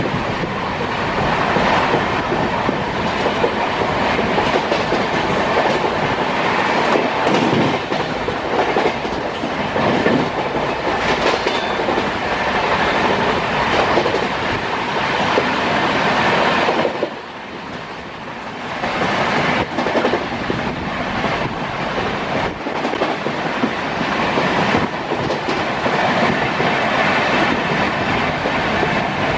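Indian Railways express train running at about 125 km/h, heard from inside a passenger coach: a loud, steady running noise of wheels on rail with quick clickety-clack over the joints. The noise drops for a second or two about two-thirds of the way through, then returns.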